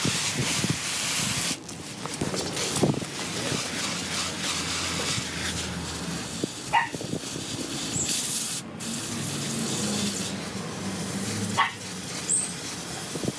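Water spraying from a garden hose nozzle onto landscape fabric and soil, a steady hiss that breaks off briefly twice. Two short sharp sounds stand out over it, about seven and twelve seconds in.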